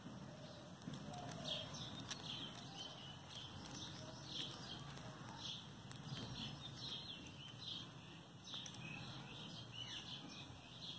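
Small birds chirping faintly and repeatedly, short high chirps every half second or so, with a few light clicks among them.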